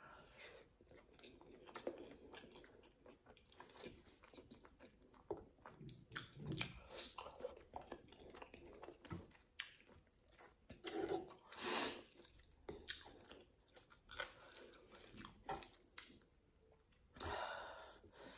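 A person chewing a mouthful of pap and grilled meat: many short, irregular soft clicks, with a few louder moments about two-thirds through and near the end.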